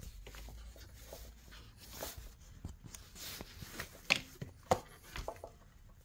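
Handling noise as the camera is moved and set back up: a low rumble, then rustling and scattered small clicks and knocks, the two sharpest a little past four seconds and just before five seconds.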